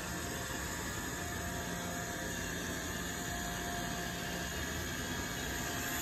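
Robot vacuum running on carpet: a steady whirring hum of its suction fan and brushes with a faint high whine.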